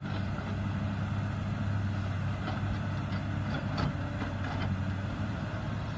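Komatsu PC200 hydraulic crawler excavator's diesel engine running steadily while it digs, with a few faint knocks.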